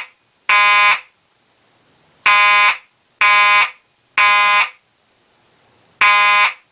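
Simplex 4903-9401 electromechanical fire alarm horn sounding in code 3, the temporal-three pattern: half-second horn blasts in groups of three, about a second apart, with a pause of about a second and a half between groups. It opens on the last blast of one group, then a full group of three, and the next group starts near the end.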